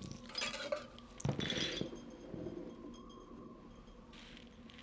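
Foley crunches and clinks of broken glass: three crunches, the loudest with a sharp start about a second in, and small pieces tinkling between them. A faint steady hum runs underneath.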